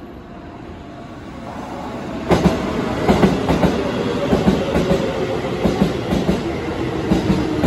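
Keisei 3700 series electric commuter train pulling into a station platform. Its running noise builds and turns sharply louder about two seconds in as the cars pass close by, with repeated clacks of the wheels over the rail joints.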